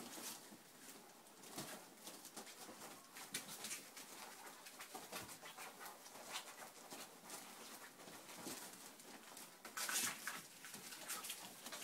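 34-day-old Akita puppies making soft squeaks and grunts as they play and nurse, with irregular scratchy rustling of paws on the sheet; the loudest burst comes about ten seconds in.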